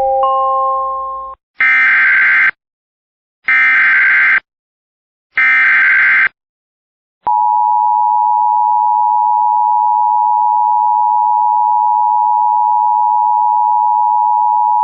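Emergency Alert System SAME header: three short bursts of digital data tones about two seconds apart, then the steady two-tone EAS attention signal, which starts about seven seconds in and holds to the end. Together they announce an incoming severe thunderstorm warning. Before the bursts, a rising three-note electronic chime ends about a second and a half in.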